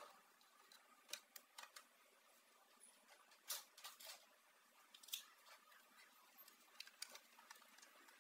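Near silence broken by faint, irregular clicks and light taps, a few of them a little louder near the middle.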